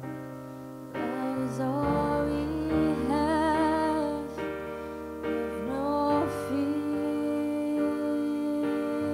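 A woman singing long held notes with vibrato over sustained piano chords played on a Nord stage keyboard. The chords sound alone at first, and the voice comes in about a second in.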